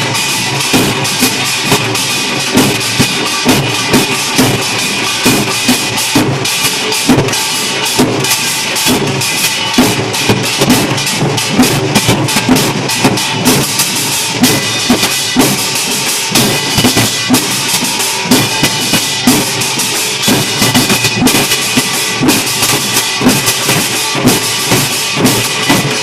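Percussion ensemble drumming a steady, fast rhythm, with strong accents about twice a second over a dense run of strokes.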